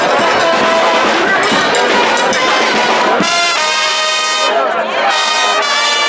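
Charanga brass band playing, with trumpets and trombones. About three seconds in the band holds a long loud note, breaks off briefly, and comes back in with another held note near the end.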